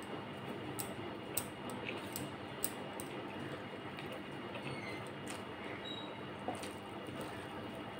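Eating by hand: fingers squishing rice with fish curry and crunchy chanachur on a steel plate, and chewing. A few sharp clicks come through it, several in the first three seconds and a couple more later, over a steady background hiss.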